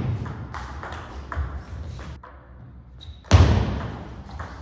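Table tennis rally: the ball clicking off rubber paddles and the table, sharp clicks a few tenths of a second apart, with two heavier thuds, one right at the start and one about three seconds in.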